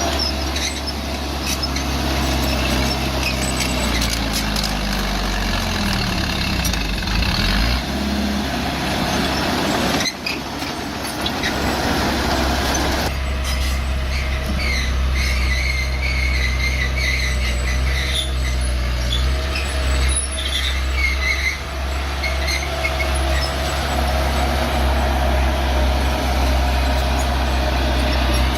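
Bulldozer's diesel engine running steadily under load, its pitch dipping and recovering a few seconds in. In the second half there are intermittent high squeaks, metal on metal.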